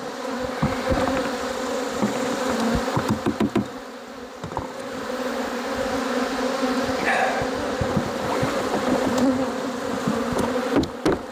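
Honey bees buzzing in a dense, agitated cloud close around the microphone: a steady, fairly loud hum disturbed by the hive inspection. A few short knocks break in around the middle and again near the end.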